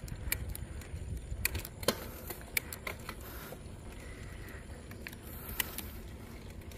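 Low wind rumble on the microphone, with irregular sharp clicks and light knocks, most of them in the first few seconds.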